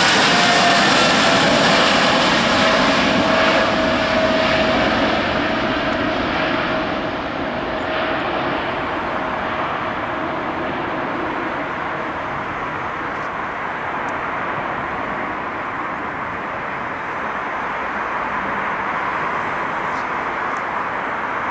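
Boeing 777-300ER's twin GE90-115B turbofans at takeoff thrust as the jet climbs away. A whine falls in pitch over the first second or two and fades out about halfway. The sound loses its high end and slowly grows duller and quieter.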